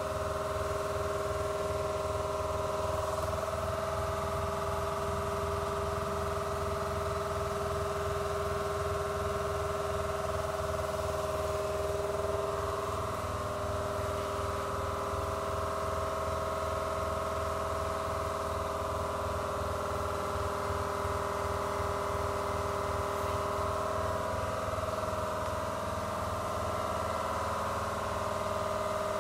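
Steady electrical whine and hum from a large homebuilt CNC mill standing powered up: several constant high tones over a low fluttering hum, wavering slightly about halfway through.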